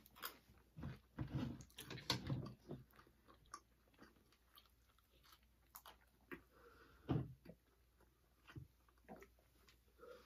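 Chewing and biting sounds of people eating at the microphone, in short irregular bursts, busiest in the first few seconds and again about seven seconds in, with faint small clicks between.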